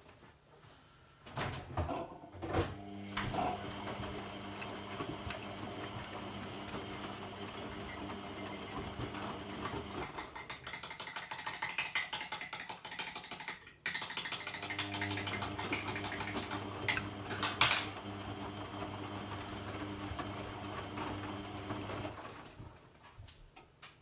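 AEG Lavamat 50435 front-loading washing machine in its rinse, the motor turning the drum so the wet laundry tumbles and sloshes in the water. The motor starts with a few clicks a second or so in, hums steadily, stops briefly about 14 s in, then turns again and stops near the end.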